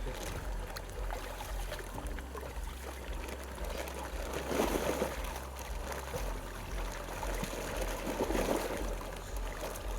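Pond water splashing and sloshing, louder in two stretches, about halfway through and near the end, over a steady low rumble.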